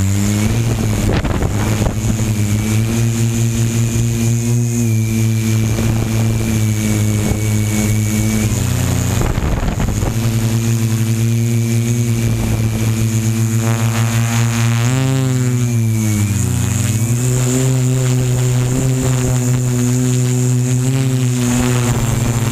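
Multirotor drone's electric motors and propellers buzzing in flight, heard up close from a camera mounted on the drone, with a constant high whine above. The pitch dips and climbs back as the throttle changes, briefly about eight seconds in and more deeply around fifteen to seventeen seconds in.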